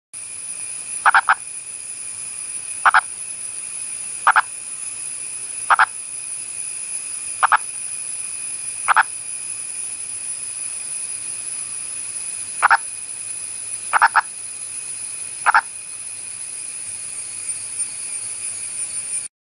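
Indian purple frog calling: about nine short calls, spaced roughly a second and a half apart with a pause near the middle, over a steady high-pitched hiss.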